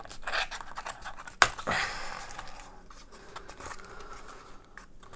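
Small cardboard box being handled and slid open: irregular rubbing and scraping of cardboard, with one sharp click about a second and a half in.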